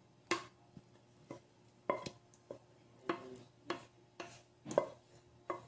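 Spatula scraping and tapping against the rim and inside of a stainless steel saucepan while thick chocolate cream is scraped out into a glass dish: a string of light knocks and scrapes, about two a second, some with a brief metallic ring.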